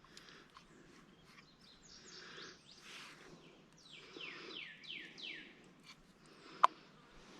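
A songbird singing a quick run of descending whistled notes over faint outdoor background noise, with one sharp click near the end.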